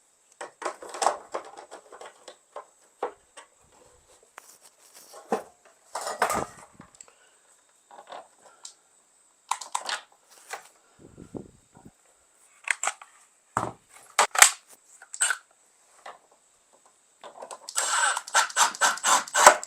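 Scattered clicks, taps and rattles of hand tools and small metal parts being handled at a van's rear door lock mechanism, ending in a quick, rapid run of clicks near the end.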